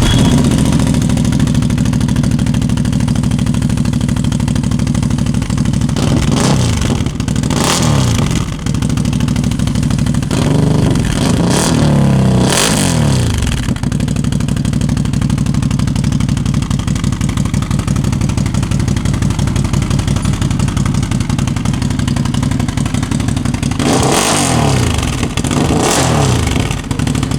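CFMOTO V-twin engine breathing through an RJWC Mud Edition slip-on exhaust, idling with a loud, deep-toned note. Pairs of quick throttle revs come about six seconds in, again around eleven to thirteen seconds, and once more near the end.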